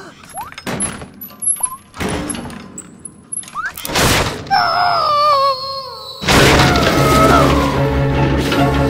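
Cartoon sound effects: scattered knocks and small squeaky glides, then a loud crash of splintering wood about four seconds in as a wooden mine cart smashes through planks. Wavering, sliding tones follow, and from about six seconds music with steady low notes comes in loud.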